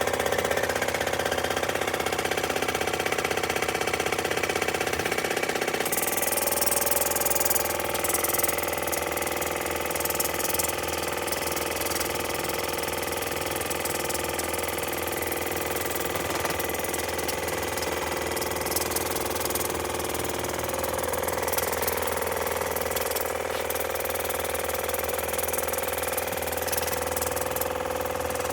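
Waterpik oral irrigator's pump motor running steadily with an even buzzing hum. About six seconds in, a hiss of water spray joins it as the jet blasts white-out and eraser shavings out of a typewriter.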